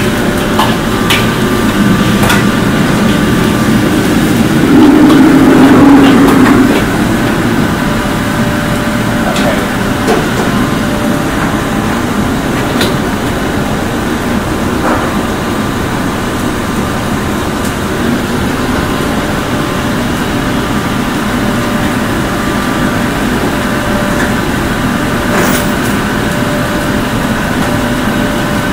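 Steady loud roar of a commercial kitchen's gas wok range and extraction, with a few sharp metal clanks scattered through it.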